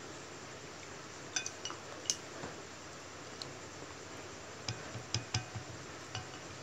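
Wooden chopsticks clinking against a ceramic bowl while stirring dipping sauce: scattered light clinks, in a cluster about a second and a half in and another about five seconds in.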